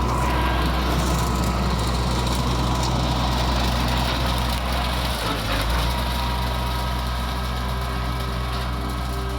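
Lawn mower engine running steadily, with a brief dip in its hum about five seconds in.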